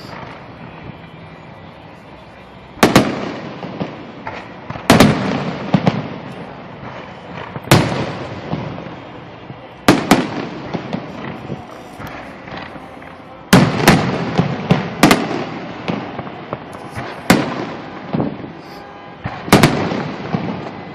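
Aerial fireworks shells bursting in a steady series: about a dozen loud booms, some alone and some in quick clusters of two to four, each trailing off in a fading echo.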